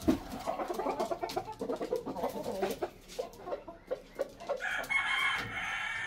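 Red junglefowl calling: a rooster crowing and hens clucking, with a higher-pitched call in the last second or so.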